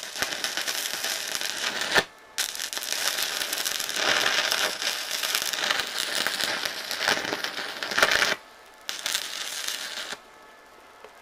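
Stick (arc) welding electrode arc crackling and sizzling. It burns for about two seconds, breaks off briefly, runs again for about six seconds, then gives a last burst of about a second before it stops. This is a beginner's tack weld.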